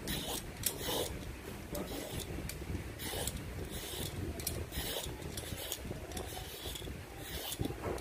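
Plastic vegetable peeler scraping the skin and ridges off a patola (angled luffa), a short rasping stroke about once a second.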